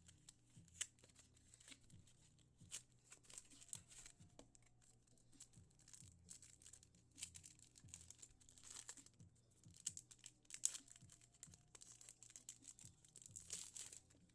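Faint crinkling and tearing of a Pokémon card booster pack's foil wrapper being opened by hand, with irregular sharp crackles and a few longer rustling spells.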